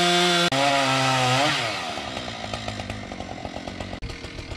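Chainsaw running at full throttle as it cuts the second lip of a felling notch in a tree trunk. About one and a half seconds in the revs drop, and it runs on at a low idle with a fast ticking.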